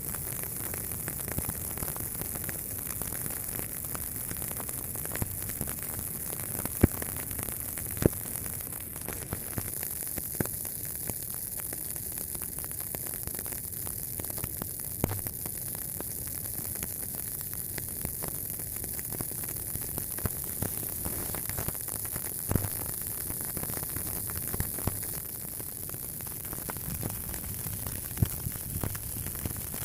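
A fire burning: a steady hiss with scattered sharp crackles and pops, a few of them much louder than the rest.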